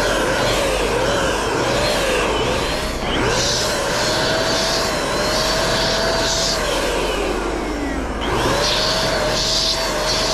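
Small handheld electric paint sprayer's motor whining at high speed, its pitch wavering up and down about twice a second at first. About seven seconds in it winds down, then spins back up a second later. Short bursts of hiss come over the whine.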